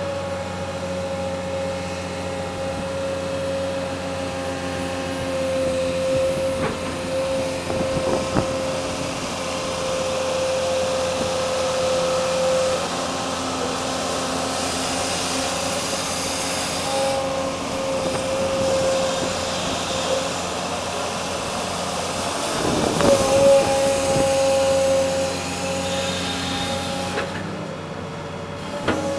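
Excavator's diesel engine and hydraulics running steadily while it digs, with a constant whine over the engine drone. The whine briefly drops and climbs again late on.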